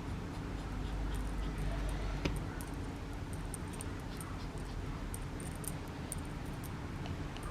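Papillon puppy moving about: faint light ticks and clicks over a steady low hum, with one sharper click about two seconds in.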